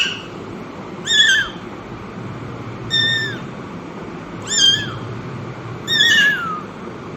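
Kitten mewing: five high-pitched mews, about one every second and a half, each short and dropping in pitch at the end.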